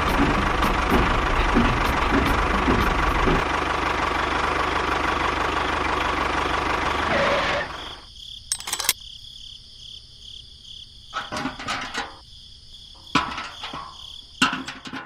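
An engine running steadily, cutting off sharply about seven and a half seconds in; after that, a few scattered clicks and knocks.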